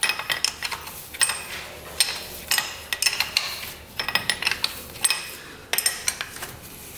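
Irregular sharp metallic clinks and clicks of a wrench and loose nuts as the hand-tight cylinder nuts are undone on a 1982 Yamaha YZ125's two-stroke engine.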